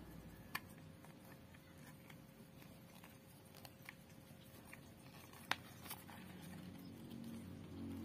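Faint clicks and taps of a screwdriver and small plastic parts being handled while a screw is driven into the cover of an electric sprayer pump, with one sharper click about five and a half seconds in.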